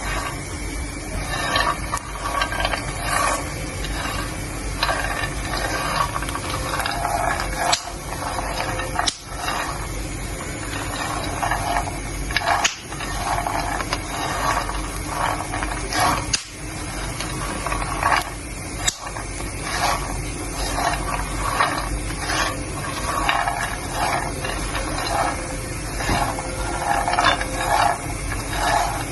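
Peanuts being stirred, rasping and rattling in repeated strokes about twice a second, with a few sharp pops.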